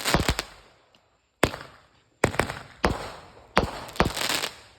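A small consumer firework going off: about eight sharp bangs, some in quick pairs, each trailing a fading crackling hiss, the last one about four seconds in.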